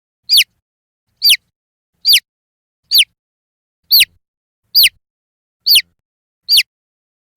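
Baby chick peeping: eight short, evenly spaced peeps a little under a second apart, each a quick note that flicks up and then falls steeply in pitch.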